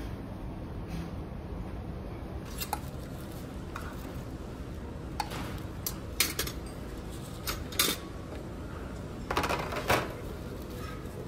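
Dishes and metal serving utensils clinking at a buffet counter: scattered sharp clinks and clatters, the loudest cluster near the end, over a steady low hum.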